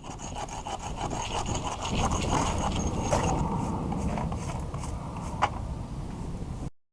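Old mortar being scraped and rasped off a brick with a hand tool: a continuous gritty scratching, with a sharp click about five and a half seconds in, stopping abruptly near the end.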